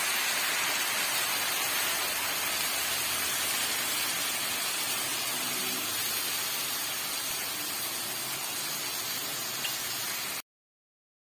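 Hot chicken broth sizzling and bubbling in a pan of toasted basmati rice and orzo: a steady hiss that slowly fades, then cuts off abruptly near the end.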